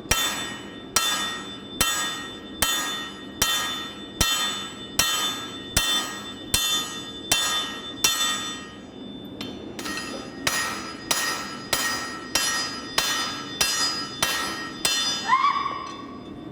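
Steady hand-forging blows of a 2¼ lb camp axe used as a hammer on a hot steel billet at the anvil, each strike ringing. About twenty evenly spaced blows, roughly one every 0.8 s, with a brief pause about nine seconds in, then a slightly quicker run.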